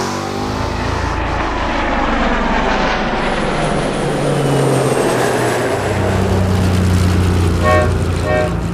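A dense, layered mix of sound effects under a steady engine-like drone and low hum, with two short patterns of stacked beep-like tones near the end.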